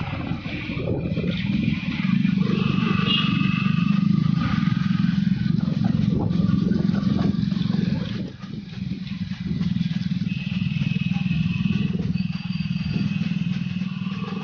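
Yamaha R15 V2.0's 150 cc single-cylinder engine running steadily while riding, with wind and road noise over it; the drone eases briefly about eight seconds in, then picks up again.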